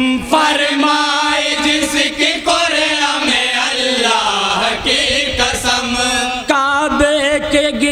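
A group of men singing an Urdu naat together in chorus, unaccompanied, with long held notes that waver in pitch.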